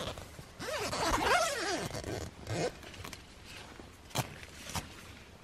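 A tent door zipper being pulled along its curved track in a long rasp whose pitch rises and falls with the speed of the pull, followed by a few light clicks and knocks.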